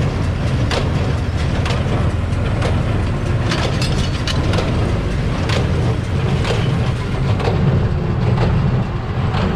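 Tractor engine running steadily with hay machinery working, its drone broken by irregular sharp knocks and cracks several times a second.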